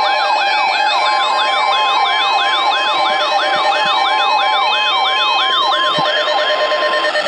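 NOAA Weather Radio's steady 1050 Hz warning alarm tone, sounding together with a receiver's siren alert that sweeps up and down about three times a second. The siren stops about six and a half seconds in and the tone cuts off just after; the alarm signals an incoming watch or warning, here a tornado watch.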